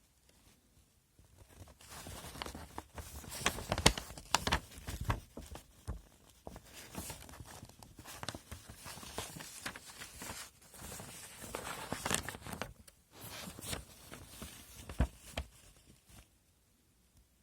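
Rustling, crinkling and light clicks and knocks of a plastic model kit's box and bagged parts being handled and unpacked, starting about two seconds in and dying away near the end.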